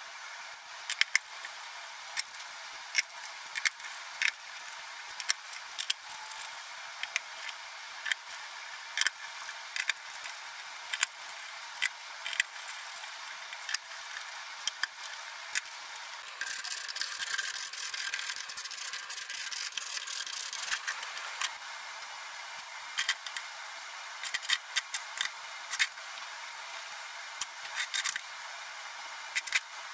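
Scattered sharp metallic clicks and clinks of steel hardware being handled: nuts and threaded rods knocking together and grinder discs set onto the rods. A steady hiss runs under them, louder for a few seconds in the middle.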